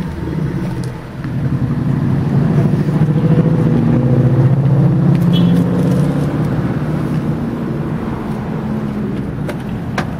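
A car engine idling, its hum swelling about a second and a half in and slowly fading toward the end. A single sharp click near the end.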